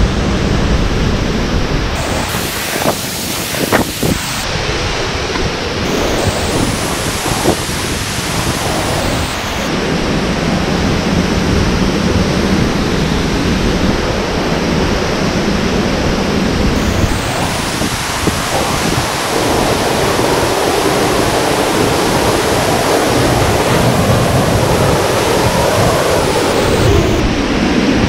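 Mountain waterfall rushing: a loud, steady roar of falling water, with a few knocks from handling the camera about three seconds in.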